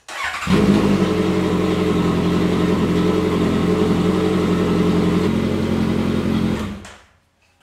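2014 Honda CB1100's air-cooled inline-four engine idling steadily through its modified exhaust, then stopping near the end. It is being run after a fresh oil fill to circulate the new oil before the level is checked.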